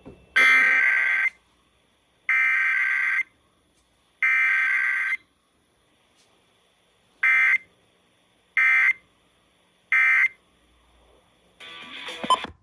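Emergency Alert System SAME digital data bursts: three header bursts about a second long and a second apart, then, after a short pause, three brief end-of-message bursts. There is no attention tone or voice message between them, the form of a required weekly test.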